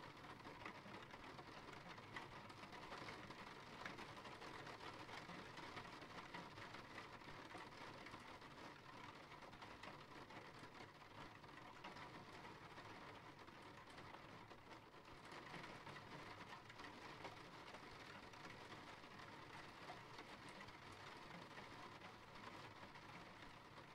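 Faint steady rain: an even hiss with small scattered drop ticks.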